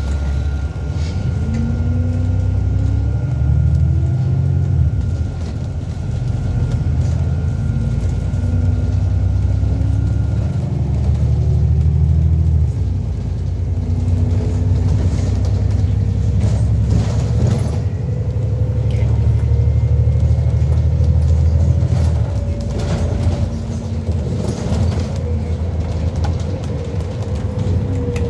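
Inside an ADL Enviro400MMC double-decker bus under way: a steady low engine and driveline rumble, its note repeatedly rising and dropping back as the bus pulls along. A thin steady whine stops about ten seconds in, and a few short knocks and rattles come through.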